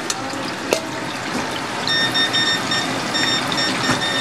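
Kakiage tempura sizzling and bubbling in a deep fryer's hot oil, with one sharp metal clink under a second in. From about halfway, a high electronic beep repeats in short quick pulses over the frying.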